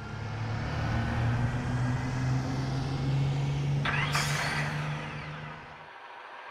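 Truck engine running steadily, with a short hiss of air about four seconds in as the ramp drops. The engine cuts off about a second before the end.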